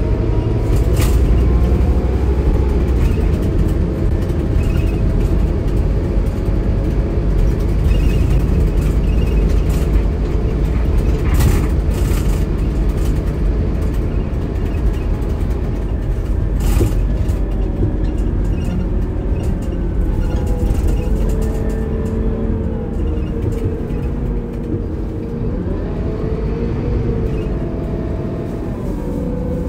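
Scania K280IB coach under way: its Scania DC9 diesel runs with a strong low rumble while the whine of the ZF Ecomat II automatic gearbox rises and falls as the coach speeds up and slows. A few sharp knocks or rattles come through, about a second in and again between about 11 and 17 seconds.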